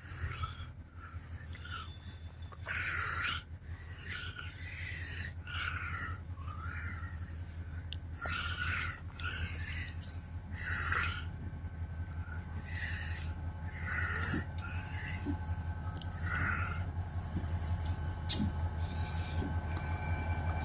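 Diesel locomotive idling with a steady low throb. Short breathy, rasping bursts come over it roughly once a second.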